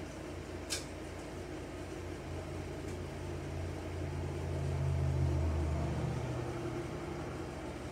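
A low, steady rumble that swells for about two seconds past the middle and then fades, with one short sharp click about a second in.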